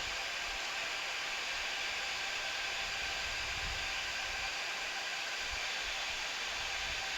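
Steady hiss of an Embraer 175 cockpit in flight during descent, with faint low rumbling underneath.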